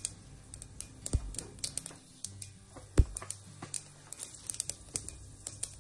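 Mustard seeds spluttering in hot oil during tempering: irregular sharp pops and crackles, the loudest about three seconds in.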